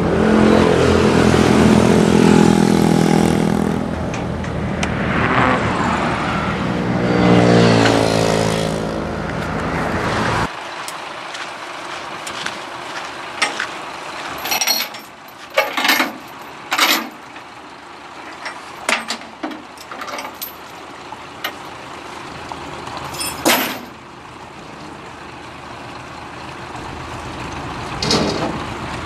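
A tracked rice combine harvester's engine running hard and revving up twice. About ten seconds in the sound drops abruptly to a quieter steady running hum, broken by a series of sharp metal clanks and knocks.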